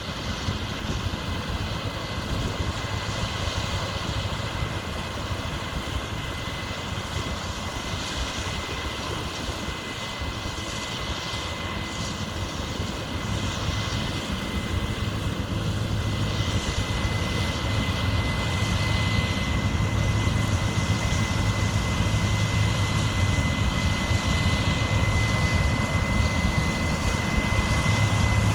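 Large farm machinery running steadily in the field: a deep engine hum with a thin, steady high-pitched whine above it, getting louder over the second half as the machine comes closer.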